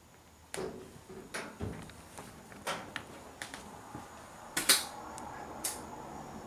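Scattered knocks, clicks and rustles from people moving and handling things in a cluttered room, the loudest knock a little under five seconds in. A faint steady hum joins about four seconds in.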